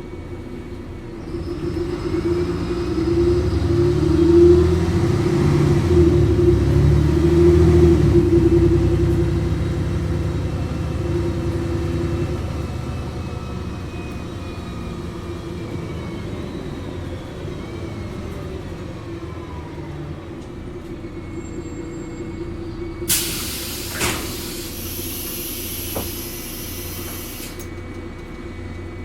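Interior of a city bus driving: the diesel engine picks up as the bus pulls away and speeds up, then settles to a steady run with rattles. Near the end comes a loud hiss of compressed air lasting several seconds, with a couple of knocks in it, typical of the air brakes and pneumatic doors at a stop.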